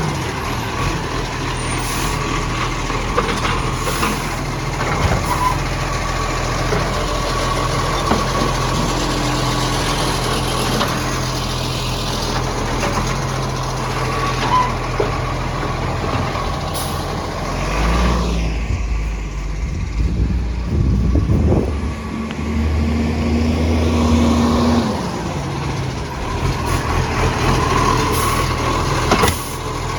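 Garbage truck's diesel engine running with a loud exhaust leak; the revs rise twice, about two-thirds of the way through, with a few short air hisses.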